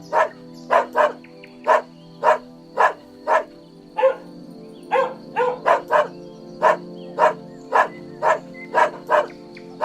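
Dog barking repeatedly, about two barks a second, over a steady music bed.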